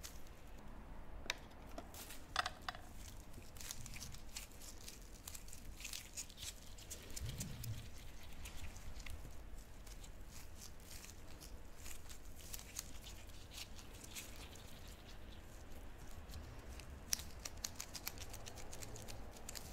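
Gloved hands kneading and shaping soft wagashi dough: faint rubbing and rustling of the gloves, with scattered small clicks and a few sharper taps.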